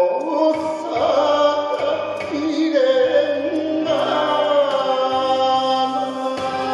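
Man singing a Japanese song into a microphone over an instrumental backing track, holding long notes that bend in pitch.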